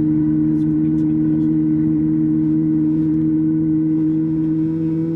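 Steady cabin drone of a Boeing 737 MAX 8 on the ground with its CFM LEAP-1B engines at idle: a low hum carrying two unchanging tones.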